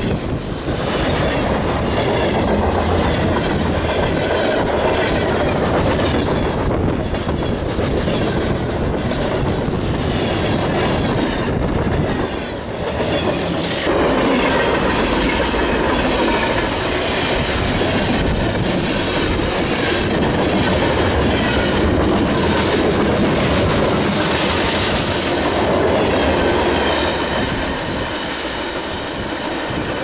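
Freight train cars rolling past close by, with steel wheels rumbling and clattering on the rails. The noise falls off slightly near the end as the last cars go by.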